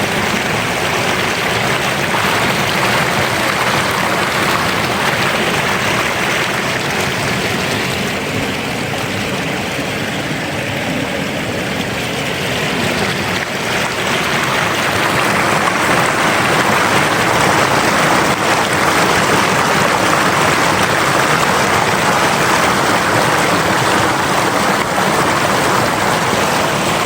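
River water rushing steadily, a continuous loud wash of flowing water that eases slightly midway and swells again in the second half.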